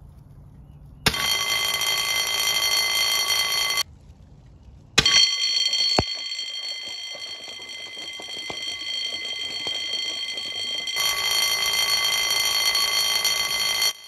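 Electric fire-sprinkler water-flow alarm bell ringing continuously, the sign that a sprinkler head has opened and water is flowing. It cuts in about a second in, stops for about a second near four seconds, then rings on over the spatter of the sprinkler's water spray.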